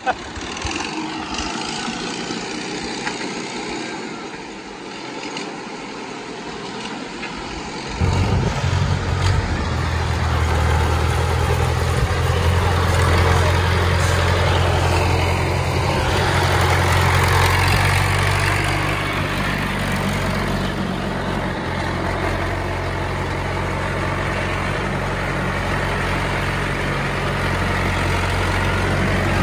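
Engine of a DAVID 995 farm tractor running steadily with a loud, deep hum, which starts abruptly about eight seconds in at a cut. Before that comes a thinner, hissy vehicle sound.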